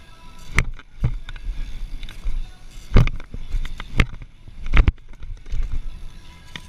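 BMX bike rolling over pavement with tyre rumble and wind on the camera microphone, broken by five or so sharp knocks and clatters as the bike and its rider-mounted camera jolt over bumps.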